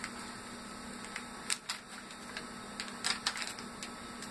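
Plastic bag of soft plastic fishing baits crinkling and crackling as it is handled in the hands, with a cluster of sharp crackles about a second and a half in and another around three seconds, over a faint steady hum.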